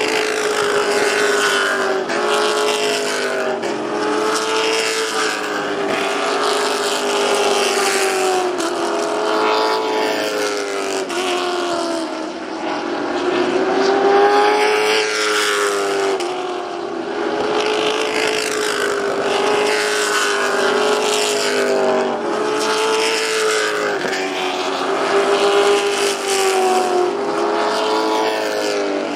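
Several Charger-class stock cars racing on a short oval, their engines at high revs, the pitch swinging up and down over and over as the cars accelerate and lift through the corners.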